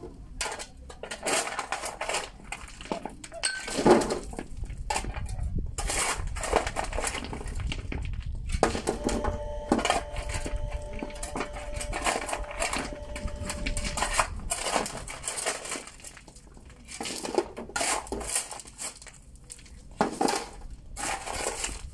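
A steel shovel digging into a pile of crushed stone and tipping the loads into a wheelbarrow: irregular crunching scoops and stones clattering into the barrow.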